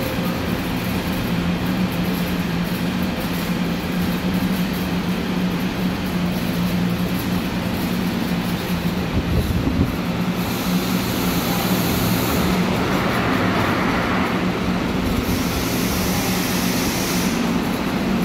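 Seoul Line 7 subway train running into the station behind the platform screen doors, a steady low hum and rumble as it slows to a stop. Two short bursts of hiss, about eleven and sixteen seconds in.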